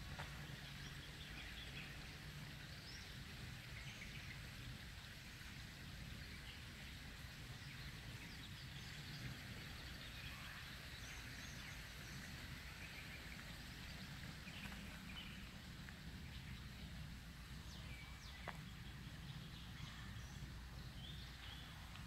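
Faint woodland ambience: scattered short bird chirps and calls over a low, steady rumble.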